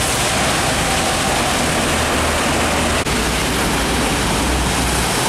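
Heavy rain and truck traffic on a wet road: a steady hiss of rain and tyre spray over the low rumble of passing truck engines. The sound breaks off for an instant about three seconds in.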